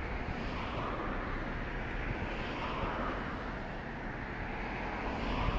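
Road traffic going by: the tyre-and-engine rush of vehicles swells and fades about every two to three seconds, over a low wind rumble on the microphone.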